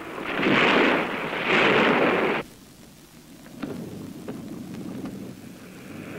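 Surf breaking against rocks in two loud surges, each about a second long, cut off suddenly about two and a half seconds in. After that comes a faint low hum with a few light knocks.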